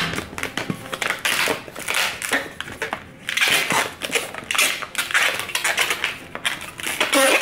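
Inflated latex modelling balloons squeaking and rubbing against each other and the hands as they are twisted and bent into a balloon animal, with a short wavering squeal near the end.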